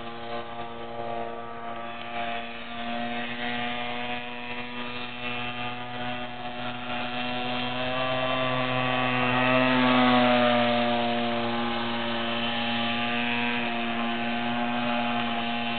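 30cc two-stroke gas engine of an RC boat running at speed on the water, a steady high engine note. A little past the middle it grows louder and its pitch bends as the boat sweeps past, then it settles back.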